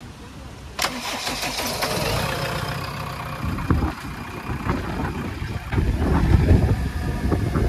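Heavy diesel machinery running with a deep rumble, with a sharp knock about a second in and smaller knocks scattered through. The engine noise grows louder in the second half.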